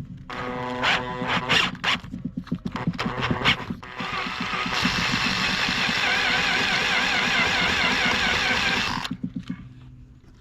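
Electric drill on low speed drilling out a broken bolt's hole in a cylinder head with a helicoil drill bit, the bit lubricated only with WD-40. A few short bursts of the motor whining come first, then about five seconds of steady drilling with a wavering squeal from the bit, stopping about nine seconds in.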